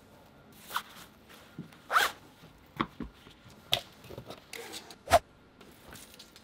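About five short, quick zip-like swishes a second or so apart, the loudest about two seconds in and just after five seconds.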